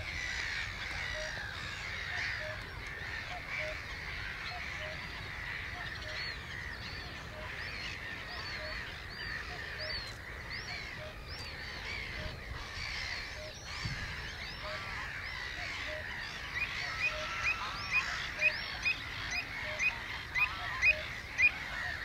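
Dawn chorus of many wild birds calling and chirping over a wetland, with a soft low note repeating steadily underneath. About three-quarters of the way in, one bird starts calling loudly and repeatedly, about two calls a second.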